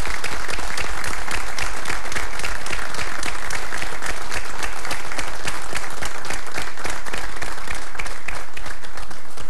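Studio audience and seated guests applauding together, a dense, steady clapping of many hands.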